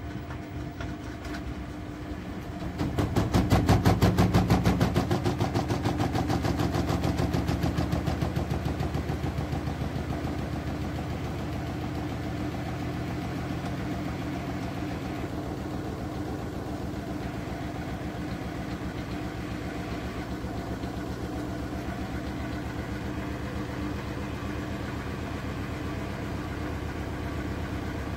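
Siemens WM14Q363NL front-loading washing machine's drum spinning up, with a rhythmic pulse on each turn of the drum that is loudest a few seconds in, then settling into steady spinning.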